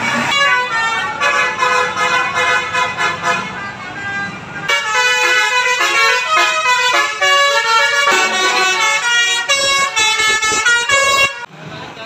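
Indonesian telolet bus horns: a tour bus's multi-tone air horns playing a fast, stepping melody, with engine hum beneath. The tune changes abruptly about five seconds in as another bus's horns take over, and the horns stop shortly before the end.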